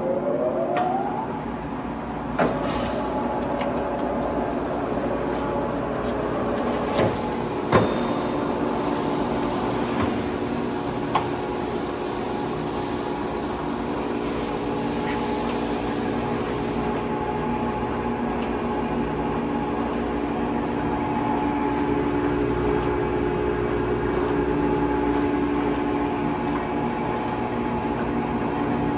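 Blanchard rotary surface grinder running under power. A motor whine rises in pitch and levels off in the first second, then gives way to a steady machine hum, with a few sharp clicks and a hiss from about 7 to 17 seconds in.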